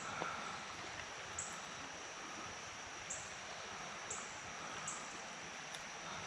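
Creek water running steadily over rocks, with short high-pitched chirps repeating about once a second over it.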